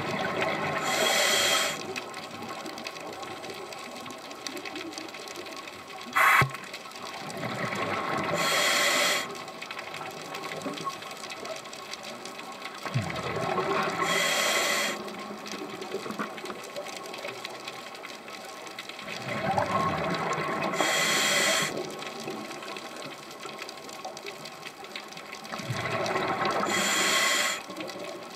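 Scuba diver breathing through a regulator underwater: five breath cycles about six seconds apart, each a rush of bubbles and hiss that stops abruptly. A single sharp clack about six seconds in.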